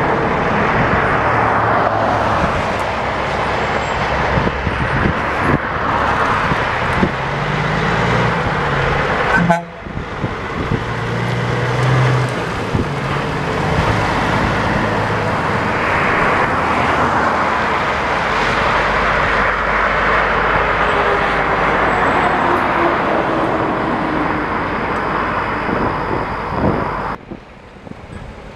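Diesel semi trucks pulling dump trailers driving along the highway and pulling off into a gravel lot, engines running over tyre and traffic noise. The sound breaks off briefly about ten seconds in and again near the end.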